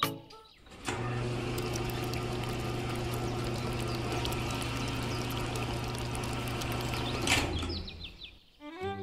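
Small electric motor of a homemade toy concrete mixer running with a steady hum and light rattle, turning its drum. It starts about a second in and winds down near the end as it is switched off.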